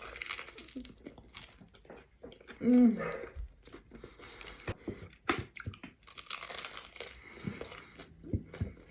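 Close-up chewing of a giant fried coxinha: crunching of the breaded crust and wet mouth sounds, with a short hummed sound about three seconds in.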